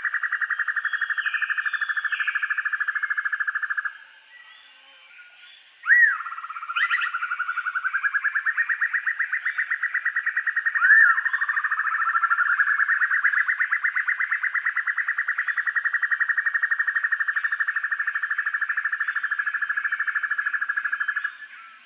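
Black-and-yellow broadbill singing long, fast rattling trills. The song breaks off about four seconds in and starts again about two seconds later with a short upward note. A second short note comes around eleven seconds, and the rattle continues until just before the end.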